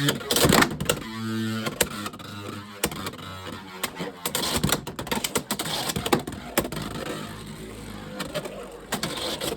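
Beyblade X Unicorn Sting ripped from a winder launcher about half a second in, then spinning around a plastic stadium. It scrapes and rattles, with many sharp clicks as it strikes the walls and its gear bit catches the Xtreme line rail.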